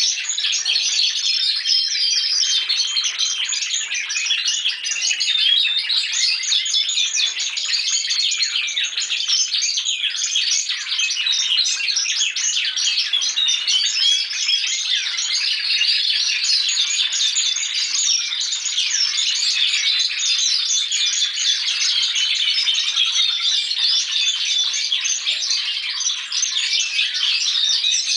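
Young Timbrado Spanish song canaries singing together without pause, practising their still-developing song: a dense, steady wash of rapid overlapping chirps and trills.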